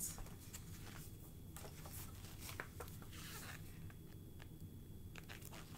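Faint rustling and soft handling clicks from a picture book being handled and closed, scattered irregularly over a steady low hum.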